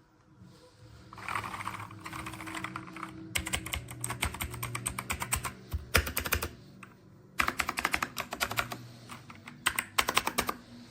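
Typing on a Dierya T68SE 60% mechanical keyboard with blue switches: rapid runs of keystroke clicks in three bursts with short pauses between them.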